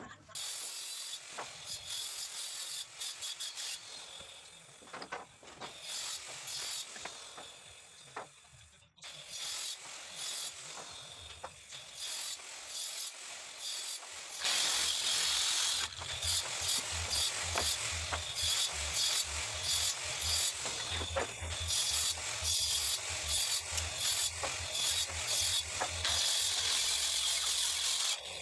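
Wooden boards scraping and knocking as they are clamped and handled. From about halfway, a hand-held circular saw cutting through a wooden door board, loud and choppy.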